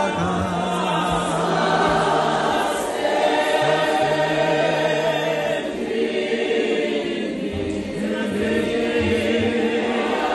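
A congregation singing a hymn unaccompanied, many voices together in harmony with held low notes.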